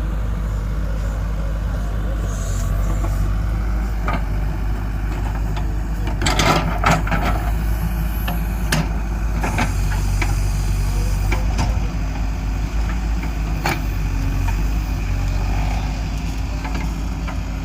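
JCB 3DX backhoe loader's diesel engine running steadily, with a burst of sharp knocks and clanks about six seconds in and a few single knocks after it.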